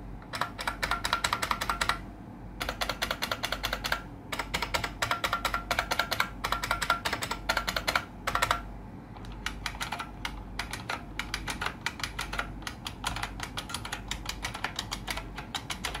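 1994 IBM Model M keyboard's buckling-spring keys being typed on fast, a dense run of sharp clicks. The typing breaks off briefly about two, four and nine seconds in.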